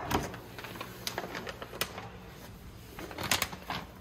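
Plastic packaging of a large bag of flour crinkling and crackling as it is grabbed and handled, in irregular clicks with a denser cluster a little after three seconds in.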